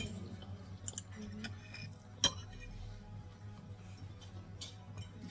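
Cutlery clicking against a plate a few separate times while eating, the loudest click a little over two seconds in, over quiet background music.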